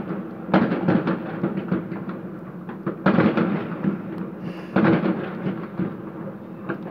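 Aerial New Year's fireworks bursting: three main bangs, about half a second in, at three seconds and near five seconds, each followed by a run of smaller pops dying away.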